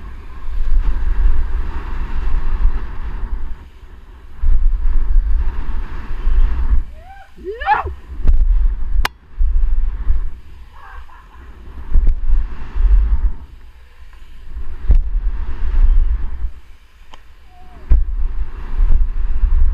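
Wind rushing over a BMX rider's GoPro microphone in surges as the bike rolls over dirt jumps, with tyre noise on packed dirt and a few sharp knocks from landings.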